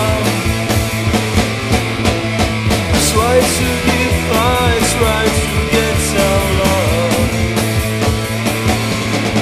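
Guitar-driven Greek power-pop rock playing from a 1992 7-inch single. A full band with drums and electric guitar keeps a steady beat, with no singing.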